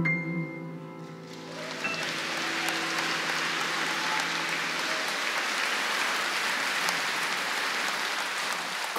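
The last held chord of a male vocal group and grand piano fades out, then audience applause starts about a second and a half in and goes on steadily.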